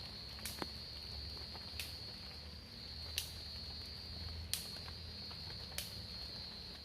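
Steady high-pitched drone of insects, with a sharp click about every second and a quarter.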